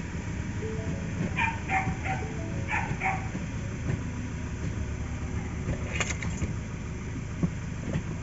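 Ford Ranger 2.0 engine idling steadily and smoothly, now starting after a no-crank fault caused by a replacement clutch master cylinder whose push rod lacked the magnet for the clutch switch sensor. A dog barks about five times in the first few seconds.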